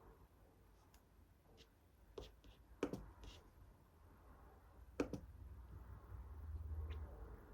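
Small objects handled on a desk: a few sharp clicks and taps, the loudest about three and five seconds in, over a low hum.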